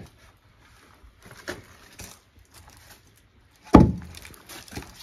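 Pieces of firewood knocking together: a few light knocks, then one loud wooden knock near the end.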